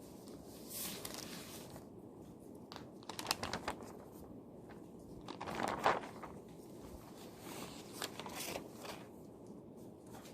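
Paper being handled at a study desk: a few short crinkling rustles with small clicks and taps between them. The loudest rustle comes about six seconds in, over a low steady room hum.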